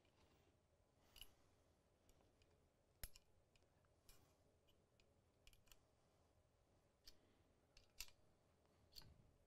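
About eight faint, scattered clicks and light knocks of small metal M1014 shotgun parts being handled, as the gas plugs are tightened with the bolt handle.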